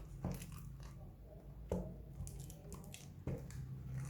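Slime being squeezed and pressed by hand, making irregular sticky crackles and squishes, with a few sharper pops.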